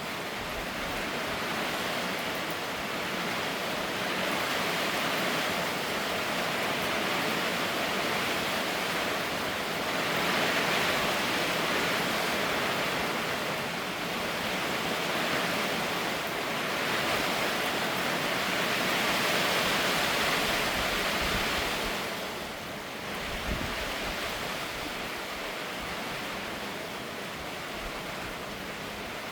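Rain falling steadily: a dense, even hiss that swells and eases over several seconds, heaviest around ten and twenty seconds in, with a short lull a little after that.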